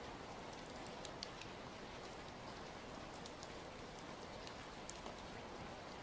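Steady rain falling on a wet surface: an even hiss with scattered individual drops ticking.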